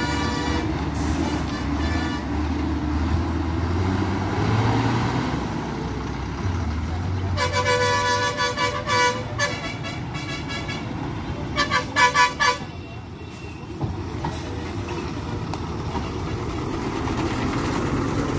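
Heavy diesel vehicles, a truck and a bus, running low through a hairpin bend with a steady engine rumble. A vehicle horn sounds in two runs of short toots, about seven seconds in and again near twelve seconds.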